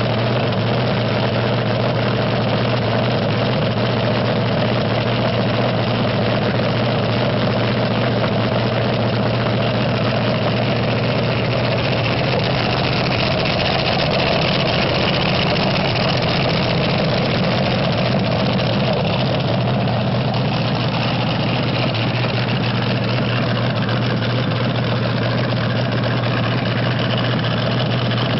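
Supercharged V8 of a vintage front-engine fuel dragster idling steadily on nitromethane during a warm-up, running through open zoomie headers with no revving.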